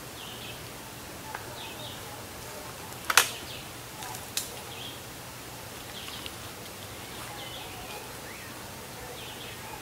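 The Cometa Fusion 4.5 mm air rifle's barrel is snapped shut after loading, with a sharp double clack about three seconds in and a lighter click about a second later. Birds chirp in the background.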